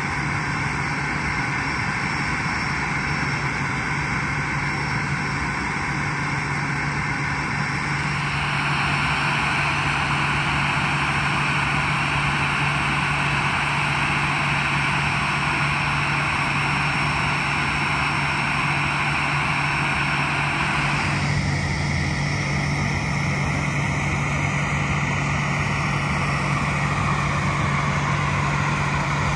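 Steady airport apron noise: the continuous roar and low hum of aircraft and ground equipment, with no single event standing out. It gets a little louder and brighter about eight seconds in and changes character abruptly about twenty-one seconds in.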